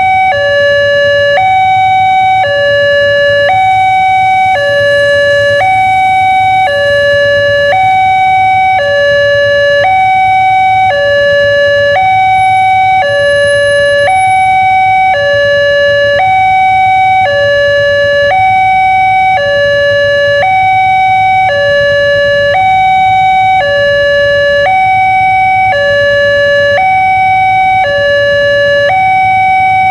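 Railway level-crossing warning alarm sounding from the signal's loudspeaker: a loud electronic two-tone chime alternating between a higher and a lower note, repeating without break at about one high-low cycle every two seconds. It is the crossing's warning that a train is approaching while the barrier is down and the red lamps flash.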